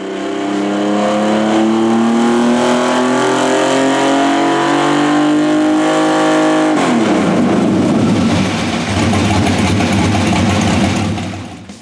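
A 519-cubic-inch V12 built from two LS1 V8 blocks, fed by individual throttle bodies, making a full-throttle pull on a hub dyno. Its note climbs steadily for about seven seconds, then the throttle closes and it winds down with a rougher, falling sound that fades near the end.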